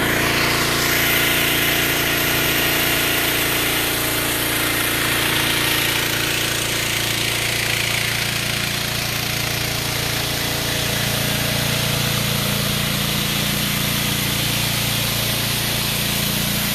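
The engine of the generator in a pressure-washing van running steadily and loudly at a constant speed, with a steady hiss over it.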